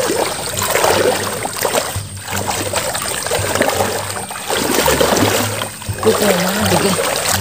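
River water splashing and sloshing in several surges as a fishing net is worked through it.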